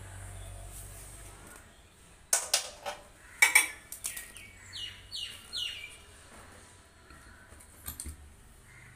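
A few sharp metallic clinks and knocks, in two clusters a couple of seconds in and one near the end, like metal parts or tools being handled. Between them a bird chirps a short run of three falling notes.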